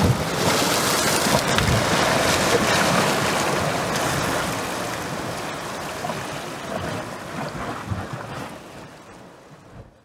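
Small Mediterranean waves washing and splashing over a low rocky shelf: a steady rush of surf with a few low thuds, fading away gradually over the second half.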